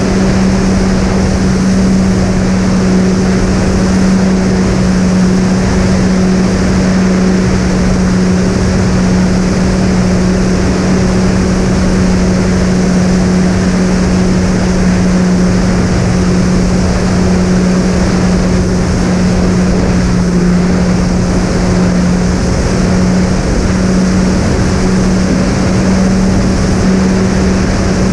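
Twin Sunnysky 2212 980 kV brushless motors with three-blade 7x4 propellers running at a steady cruise: one constant, even hum over a loud, steady rush of noise, with no change in pitch.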